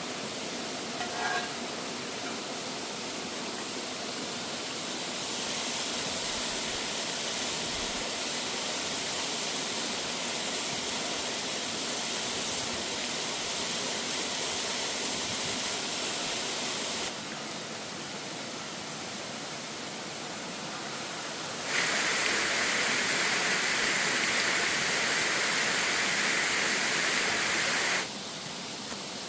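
Falling water of a woodland waterfall rushing steadily. The level and brightness jump abruptly a few times, and it is loudest and brightest for several seconds near the end.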